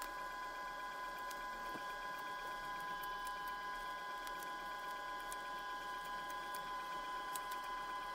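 A steady machine whine made of several fixed pitches, with faint scattered ticks from medical tape being handled over a dialysis needle.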